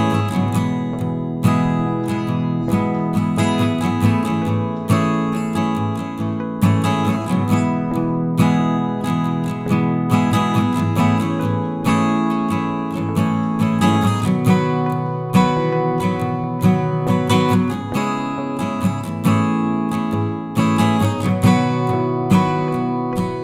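Background music: strummed acoustic guitar with frequent plucked notes.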